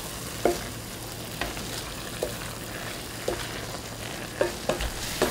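Sliced onions and sauce sizzling in a stainless steel pan while being stir-fried, with a wooden spatula knocking lightly against the pan about once a second.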